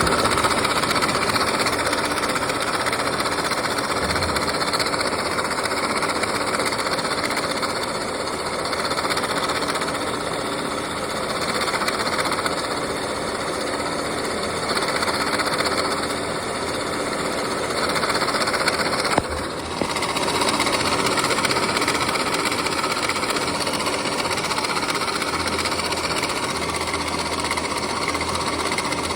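2013 Mini Countryman 1.6-litre engine running with a steady rattle from the engine bay. The rattle comes from a worn water pump belt tensioner. It dips briefly about two-thirds of the way through.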